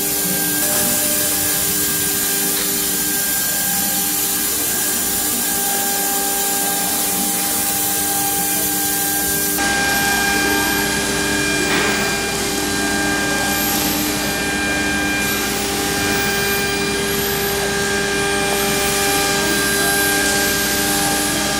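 CNC router spindle running with a fine engraving bit cutting into a fibreboard panel: a steady whine over rough cutting noise. After an abrupt change about ten seconds in, high-pitched whines rise and fall several times over the steady machine sound.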